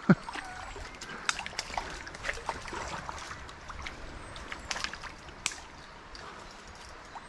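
River water running, with a hooked brown trout splashing at the surface: a few sharp splashes over the steady sound of the water.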